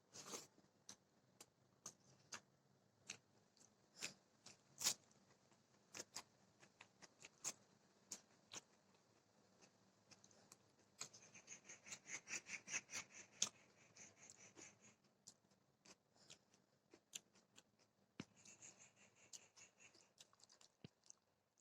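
Close-up eating sounds: mouth clicks and lip smacks while chewing, with a fast run of crunching bites about halfway through and again briefly near the end.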